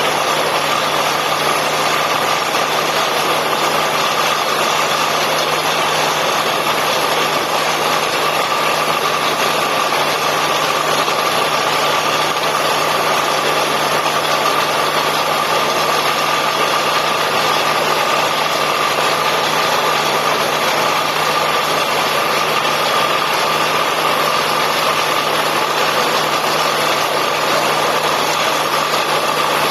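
Borewell drilling rig running loud and steady, an even engine drone with a constant whine on top.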